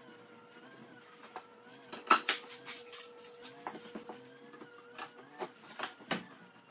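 Ceiling TV lift's small electric motor running with a steady hum as it slowly lowers the TV out of its cabinet. Several sharp clicks and ticks sound over it, the loudest about two seconds in.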